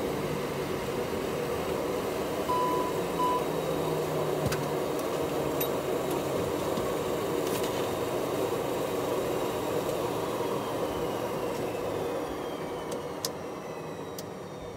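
Fokker 50's turboprop engines and propellers heard from the cockpit, a steady drone, with two short high beeps about two and a half seconds in. The noise grows quieter near the end.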